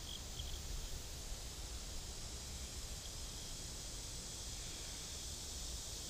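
Steady high chorus of insects in summer woodland, with a faint low rumble underneath.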